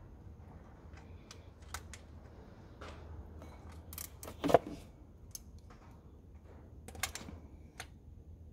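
Irregular metal clicks and clinks from hand tools and loose bolts while the water pump bolts are taken off an M111 engine, with one louder knock about halfway through.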